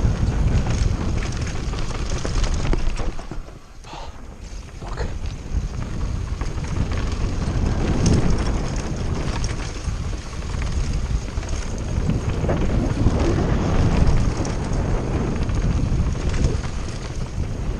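Wind buffeting the microphone over the rumble of a mountain bike descending at speed, easing off for about a second some three and a half seconds in.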